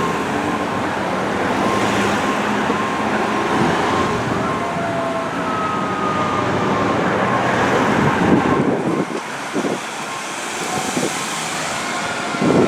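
Fire engine responding, its siren sounding in slow, gradually falling tones over the truck's engine and road noise.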